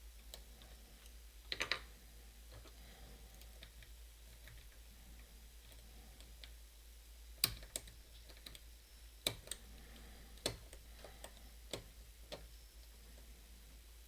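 Lock pick and tension wrench working inside a challenge lock: small metallic clicks. A quick cluster of clicks comes about a second and a half in, then a few sharp single clicks are scattered through the second half.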